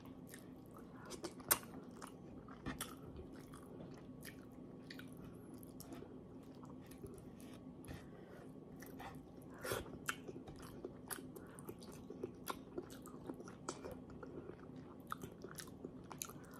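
Close-miked mouth sounds of someone chewing soft fish and rice: soft wet clicks and smacks at irregular moments, a little louder about 1.5 s and about 10 s in.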